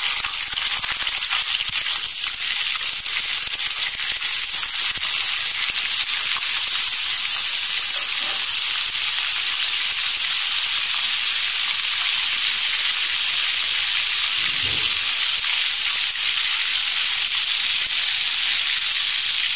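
Paneer cubes sizzling as they shallow-fry in hot oil in a kadai: a steady, loud hiss.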